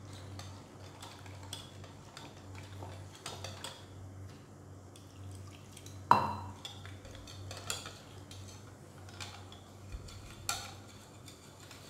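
Wire whisk beating a cornflour-and-water slurry in a ceramic bowl, its wires ticking and scraping against the bowl, with one louder knock about six seconds in.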